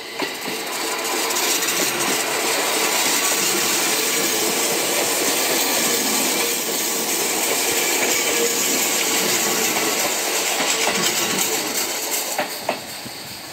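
Seibu Railway 101-series electric train pulling into a station past close by, slowing to stop: a steady loud rumble and rattle of wheels and cars, building over the first couple of seconds and easing off near the end, with a few sharp clicks from the wheels over rail joints.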